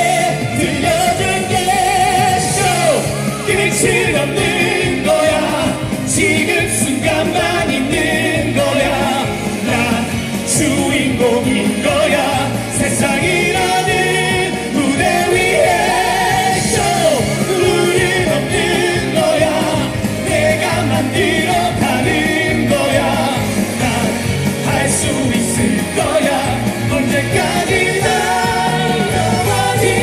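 Male vocalists singing a Korean pop song through microphones over amplified backing music with a steady beat.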